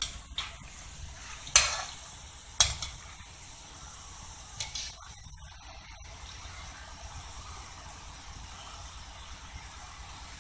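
Moong dal vadas deep-frying in hot oil in a kadhai, a steady sizzle. Two sharp clinks of a metal spoon against the vessel come about a second and a half in and again a second later.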